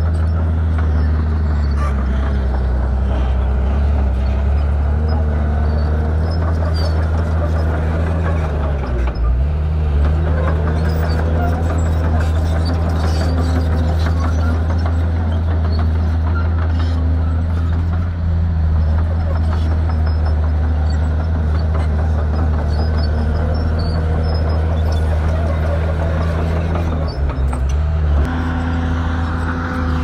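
Diesel engine of heavy earthmoving equipment running loud and steady, its pitch dropping briefly and recovering about nine seconds in and again near the end.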